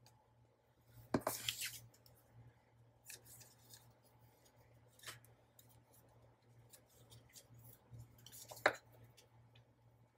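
Scissors snipping: a few separate cuts, the longest about a second in and a sharp one near the end, most likely cutting a length of eyelash trim.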